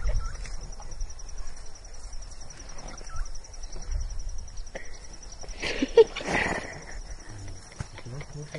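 Small terrier gnawing a marrow bone: scattered clicks and scrapes of teeth on bone, with a louder scraping burst and a sharp knock about six seconds in. A steady, high, pulsing insect trill runs underneath.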